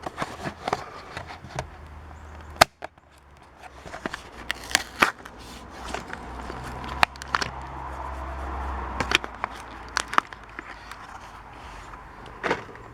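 A Hot Wheels blister-card package being opened by hand: the plastic blister crackles and crinkles and the cardboard tears, in a run of irregular sharp clicks and snaps.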